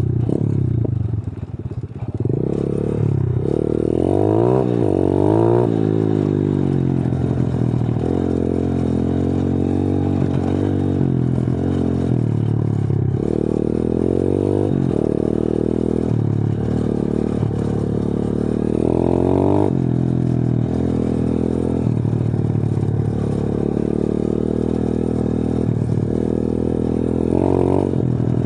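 125 cc pit bike's single-cylinder engine under way, heard from on the bike, its revs dipping about a second in and then climbing and dropping again and again as the throttle and gears are worked. There is some rattling as the bike rides over the rough dirt track.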